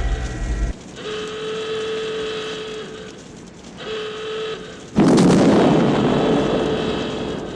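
A horn sounds in long, steady blasts with short gaps between them. About five seconds in, a loud explosion bursts out and rumbles away over the next few seconds.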